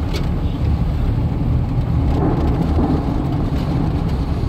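Strong rear-flank downdraft wind near a tornado buffeting the microphone: a loud, low, steady rumble with gusty fluctuations.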